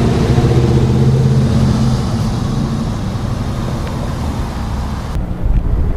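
An engine running steadily under a rough rush of outdoor noise. Its hum fades after about two seconds, and the sound changes abruptly near the end.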